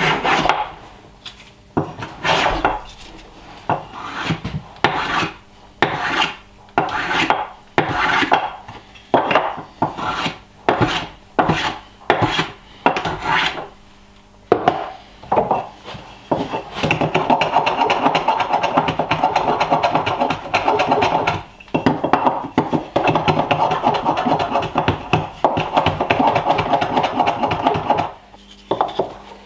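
A hand tool scraping across wood in repeated strokes, about one a second at first, then fast, near-continuous back-and-forth rubbing with a short pause partway through.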